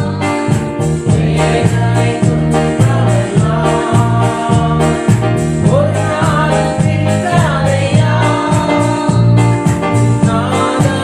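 A Christian worship song: a singing voice over instrumental accompaniment with a steady beat and sustained bass notes.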